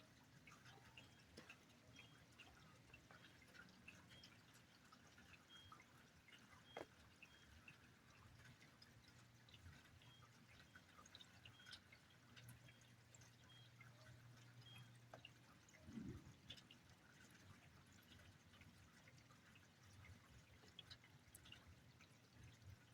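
Near silence with faint, scattered drips of rain, over a low steady hum. There is a soft low thump about two-thirds of the way through.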